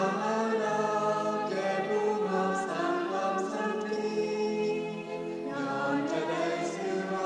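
Choir singing in long held notes that change about every second, as background music.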